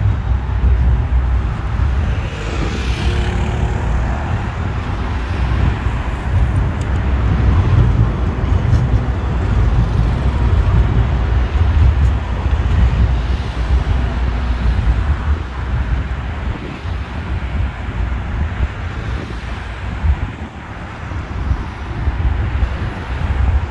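City street sound: road traffic going by, with a heavy steady low rumble.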